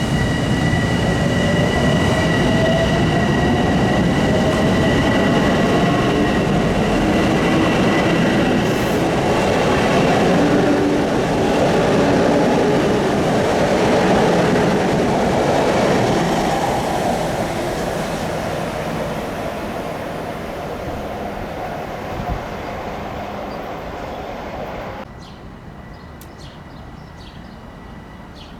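Long Island Rail Road train running by with dense rolling noise and a steady whine, loud for most of the stretch, then fading away. The level drops off sharply near the end.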